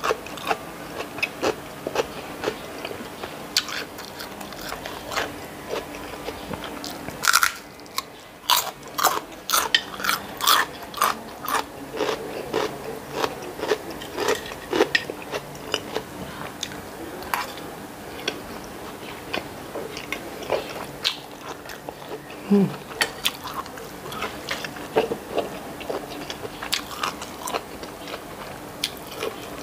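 Eating sounds: crunchy bites and chewing of raw cucumber and other fresh vegetables, with a metal spoon scraping and clinking against a ceramic bowl.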